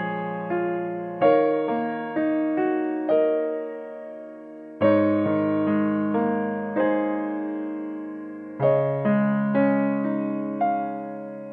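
Background piano music: slow, soft chords struck about every four seconds and left to fade, with a few single notes between them.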